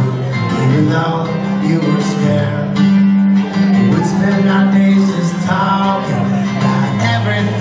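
A man singing a slow song live to his own strummed acoustic guitar.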